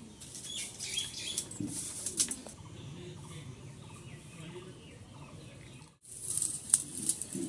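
A bundle of dry kindling sticks rustling and clicking as it is handled and fed into a clay stove to light it, with chickens clucking in the background. The sound cuts out briefly about six seconds in.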